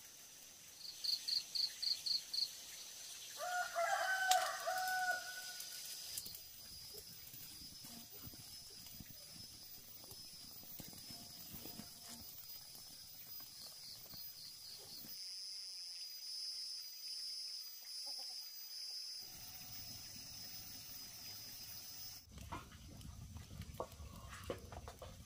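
A rooster crows once, about four seconds in, after a quick run of high chirps. A steady high-pitched hum continues through the rest.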